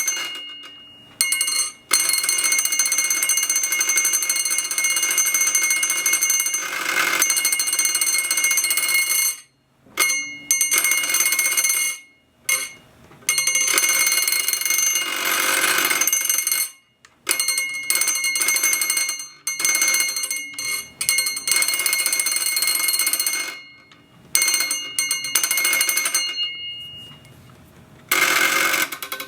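Homemade electromagnetic doorbell's spring-metal striker rattling rapidly against a hanging crystal glass, making it ring with several high, clear tones. It rings in about seven separate bursts of varying length, from about a second to eight seconds, as the push button is pressed and released.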